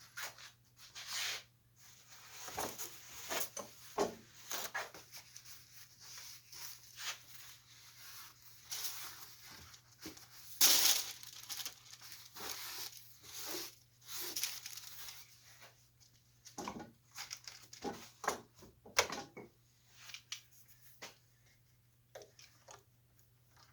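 Irregular rustling, crinkling and light knocks of hands at work on a drawer repair: wax paper, wood and clamps being handled, with a louder clatter about ten seconds in. A faint steady low hum runs underneath.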